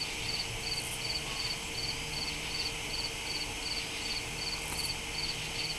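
Crickets chirping in an even, steady rhythm of about two to three chirps a second, over a continuous high insect hiss.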